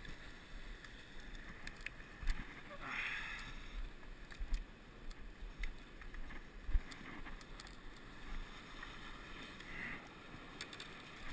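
Faint wind and small waves washing on shoreline rocks, with scattered light knocks and scuffs and a brief rush of noise about three seconds in.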